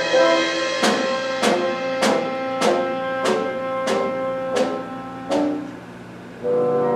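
Orchestra playing, with a held note under about eight evenly spaced drum-like strikes a little over half a second apart. The music then drops quiet for about a second before sustained instruments come back in near the end.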